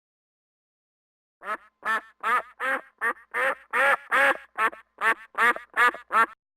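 A duck quacking: after a second and a half of silence, a quick run of about a dozen quacks, roughly two or three a second.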